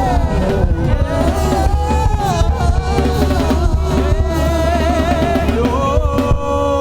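Live worship band playing: a drum kit and steady bass under a melody line that bends up and down in pitch, settling into a held chord near the end.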